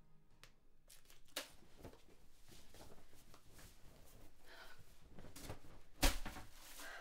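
Close handling and rustling noises: small clicks as something is fiddled with in the hands, then a cotton T-shirt rustling as it is pulled off over the head. A sharp thump about six seconds in is the loudest sound.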